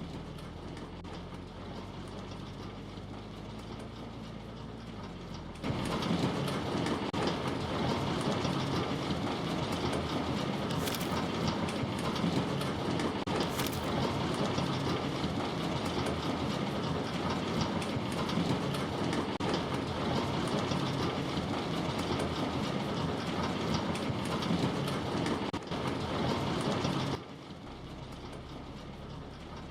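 A vehicle's engine hums for the first few seconds. About six seconds in, a loud, even rush of heavy rain on the vehicle starts, runs for about twenty seconds, then drops back suddenly near the end.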